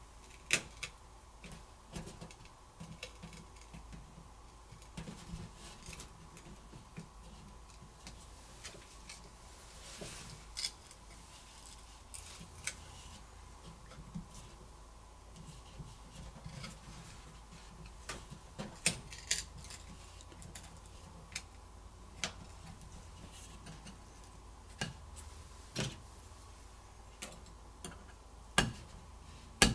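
Plastic pry tools clicking and tapping against the Samsung Galaxy Z Flip's glass back covers as they are worked loose from their adhesive. The sharp little clicks come irregularly, a few seconds apart and sometimes in quick pairs, over a quiet background with a faint steady hum.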